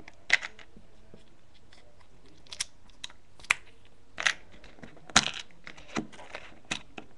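Plastic LEGO minifigures clicking as they are handled and set down on a studded LEGO baseplate: about nine short, sharp clicks at irregular intervals.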